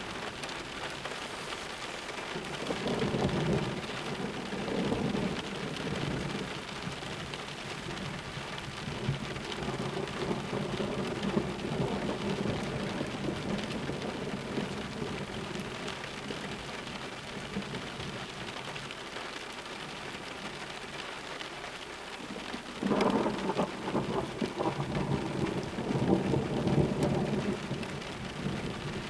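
Thunderstorm: steady rain with thunder rumbling twice, once a few seconds in and a louder, longer roll near the end.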